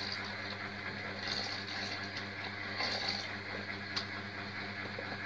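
Water poured into a steel pot of rice-flour batter while it is stirred with a spatula, with splashing and a sharp tick of the spatula against the pot about four seconds in. A steady low hum runs underneath.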